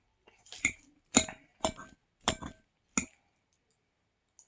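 Eating sounds from a taco meal: five sharp, short clicks in quick succession, about one every half second, then quiet.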